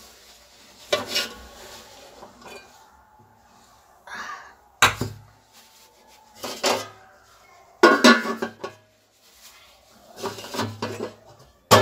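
Aluminium pot, lid and metal cake tin knocking and scraping together as the baked cake tin is lifted out of a large pot used as a stovetop oven and a lid is set back on it. Several separate metallic clanks; the loudest comes about eight seconds in.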